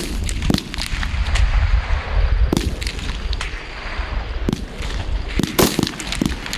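Rifle shots on a live-fire range: about seven sharp cracks at irregular intervals, several in quick succession about five and a half seconds in, over a steady low rumble.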